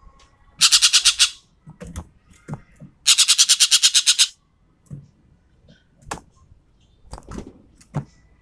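Ekek keling bird giving two loud rapid rattling calls, about ten notes a second and each lasting about a second, with scattered short clicks and calls in between.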